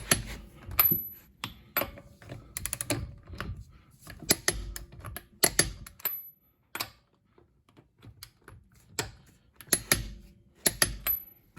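Steel impact sockets and hand tools being handled: a string of sharp metal clicks and clinks, some ringing briefly, with a quick run of clicks about three seconds in.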